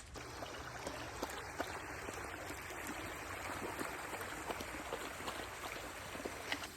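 A small creek running with a steady rushing hiss, with a few faint ticks scattered over it.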